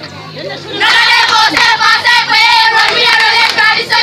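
A squad of schoolgirl cheerleaders chanting a cheer together in rhythmic phrases, starting about a second in.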